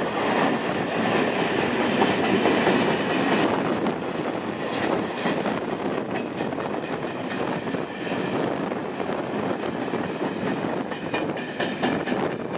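Freight train of open bogie wagons rolling past close by: a steady rumble of wheels on rails with the clickety-clack of wheels crossing rail joints, easing slightly as the last wagon goes by near the end.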